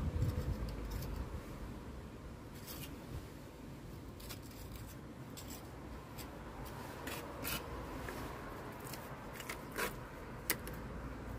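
A small steel trowel scraping and pressing sticky lime mortar into the joints between cobbles. It gives faint, occasional short scrapes, with a few sharper ones in the second half.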